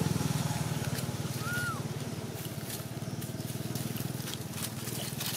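A small engine idling steadily in the background, a low pulsing drone that eases slightly, with one short high chirp about one and a half seconds in and a few faint clicks toward the end.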